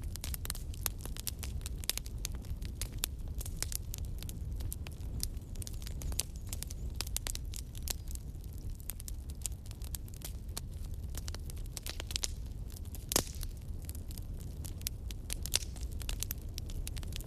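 Wood fire crackling in a fireplace: frequent sharp pops and snaps over a low steady rumble, with one louder pop about thirteen seconds in.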